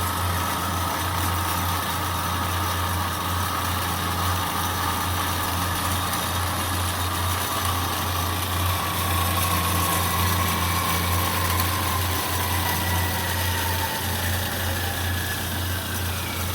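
Doall C-916-S metal-cutting bandsaw running with its blade at 145 feet per minute, cutting through a piece of tube. There is a steady motor hum, and a faint high tone that slowly falls in pitch.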